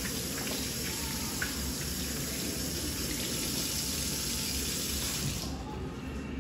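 Kitchen tap running into a stainless steel sink while hands are rinsed under the stream. The tap is shut off suddenly about five and a half seconds in.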